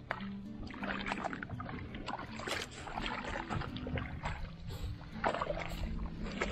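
Irregular splashing and sloshing of water, as from scooping or moving a tool through it, over a faint background tune with low held notes.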